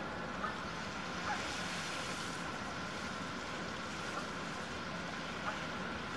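Steady rush of a river current carrying slush ice and ice floes, with a few faint short ticks.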